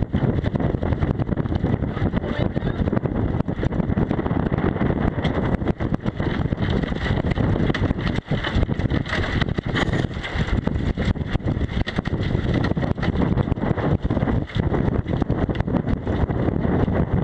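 Strong, gusty wind blowing over the microphone aboard a small sailboat: a dense, continuous rush heaviest in the low end, with the level buffeting up and down rapidly.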